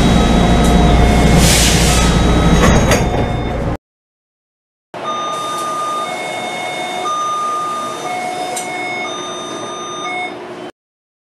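Taipei Metro warning chime: a two-note electronic tone alternating high and low several times, heard in two recordings with a cut of silence between them. The first recording is over the loud rumble of a train with a burst of hiss; the second is cleaner. The tag points to the platform or train door-closing warning.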